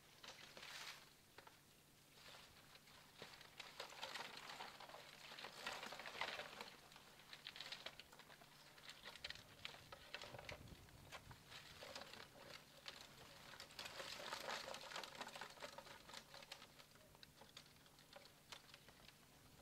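Scallop shells clattering and rattling as a catch is tipped from a dredge bag onto a sorting table: many small clicks, in two busier spells. A faint steady low hum runs underneath.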